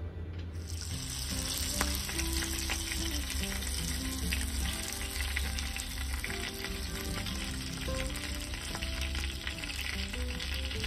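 Butter foaming and sizzling in a hot non-stick frying pan, a steady crackling hiss that starts about half a second in, with background music underneath.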